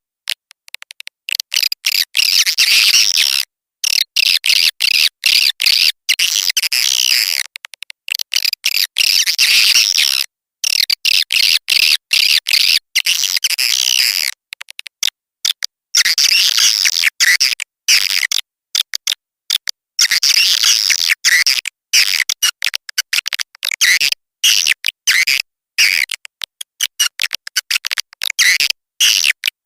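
Swiftlet lure call: dense, rapid high twittering chirps of swiftlets, in long runs broken by short pauses. This is the calling sound played at swiftlet houses to draw the birds in.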